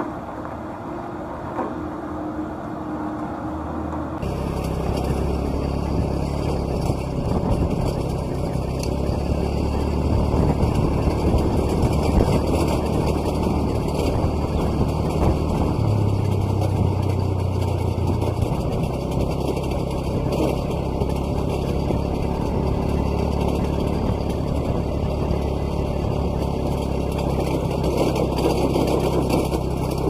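A 4x4 vehicle's engine and road noise while driving: a steady low drone that gets louder and fuller about four seconds in, with a short change in pitch around the middle.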